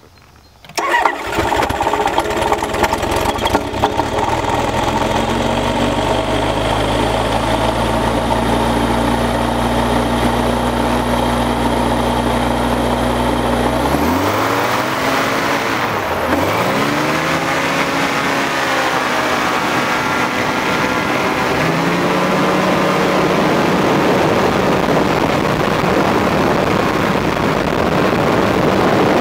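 Powered parachute's engine and propeller starting about a second in, then running steadily at idle. About halfway through it is revved up, the pitch swinging up and down, and it settles at a higher, steady full-power pitch for the takeoff run across the grass.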